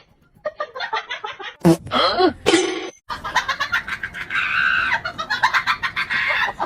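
Animal calls: quick chirps, then louder gliding squawks around two seconds in. After a sudden break near three seconds, rapid continuous chirping follows.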